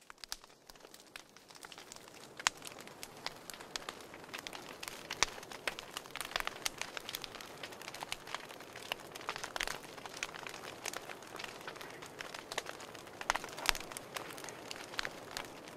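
Wood campfire crackling, with many sharp, irregular pops over a steady hiss of flame; it fades in over the first couple of seconds.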